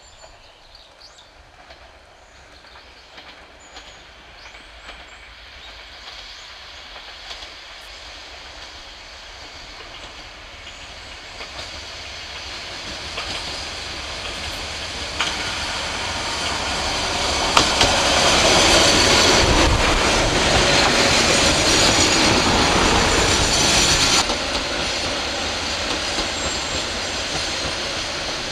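Noto Railway NT100-series diesel railcar approaching on the track and passing close by. Its engine and wheels grow steadily louder over about twenty seconds, with the clack of wheels over rail joints. The sound is loudest as the car goes by, then drops off suddenly.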